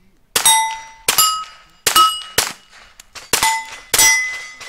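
A rapid string of about six rifle shots at steel targets. Most shots are followed by the ring of a struck steel plate, each plate at its own pitch.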